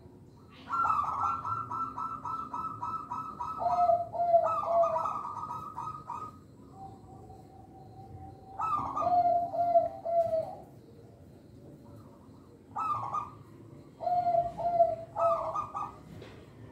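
Zebra dove (perkutut) singing: three bursts of rapid, rolling coos, each dropping to a few lower notes at its end, with short pauses between them.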